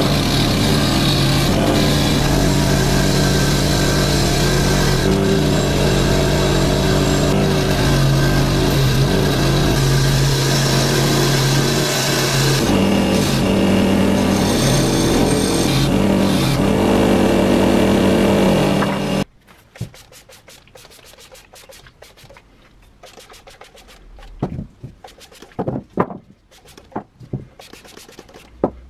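Bench grinder running steadily with a wire wheel as rusty cast-iron spiral jack parts are pressed against it to brush off the rust. The sound cuts off suddenly about two-thirds of the way through, leaving quiet rubbing and a few light knocks of metal parts being handled.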